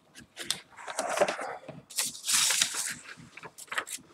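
Cardboard box and paper packaging being handled: irregular rustling and crinkling, loudest about a second in and again past the middle, with a few sharp clicks and taps.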